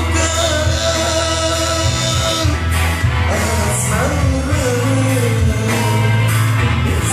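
A singing voice over music with a steady bass line.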